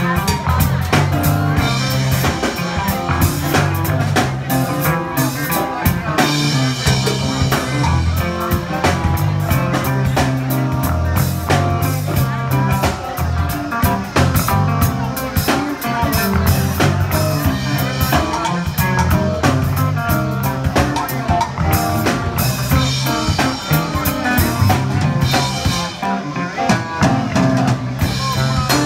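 Live band playing a soul song: electric guitar, electric bass, drum kit and keyboards, with a steady drum beat and a strong bass line.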